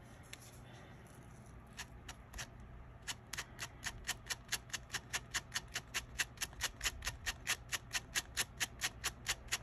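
Quick, even brushing strokes, about four or five a second, starting about three seconds in and growing a little louder: a brush being drawn through strands of yarn to fluff them into fur.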